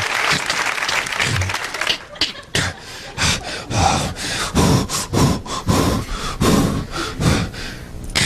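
Applause dying away, then a string of short vocal sound effects made with the mouth into a microphone, about two a second.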